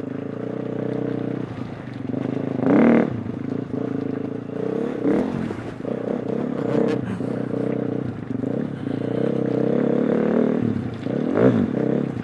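2020 KTM 350 EXC-F's single-cylinder four-stroke engine running under load while ridden off-road, revving up sharply about three seconds in and again near the end, with a few knocks from the bike over rough ground.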